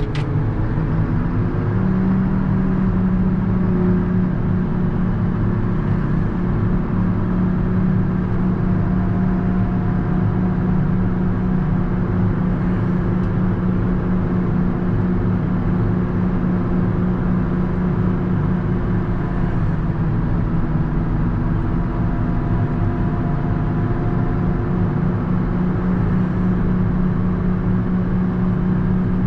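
JCB Fastrac 4220 tractor's diesel engine running steadily while the tractor pushes a front snow plow, heard from inside the cab, with a faint whine that drifts slightly in pitch.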